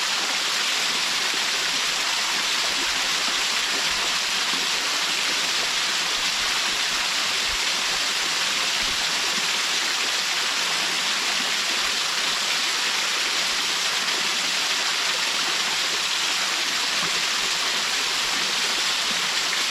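Waterfall splashing steadily: an even rush of falling water, strongest in the high hiss, without a break.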